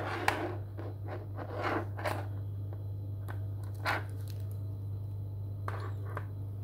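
Handling noise close to a phone microphone: scraping and rustling with a few sharp clicks as a beaded hematite bracelet is handled, over a steady low hum.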